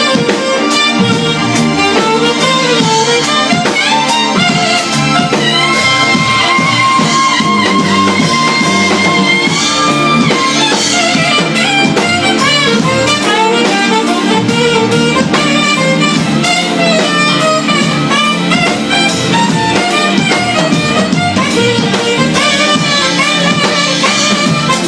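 Live instrumental ensemble music: a melody line over a steady accompaniment, holding one long note about a quarter of the way through.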